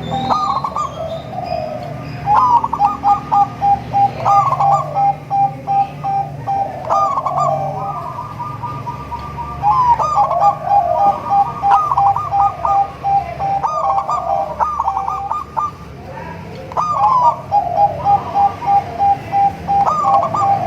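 Zebra doves (perkutut) cooing, each bird giving a rapid staccato phrase every two to three seconds, several birds calling over one another.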